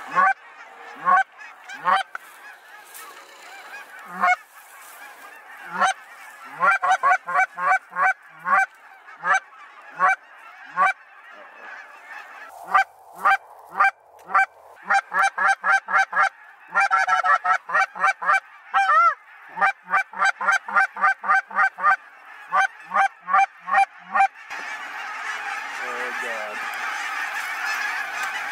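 Short-reed Canada goose call blown in fast runs of short, sharp clucks and honks to draw a flock into the decoys, over a flock of geese calling. About three-quarters of the way through the calling stops and the many overlapping honks of a large flock of Canada geese overhead fill in as a continuous din.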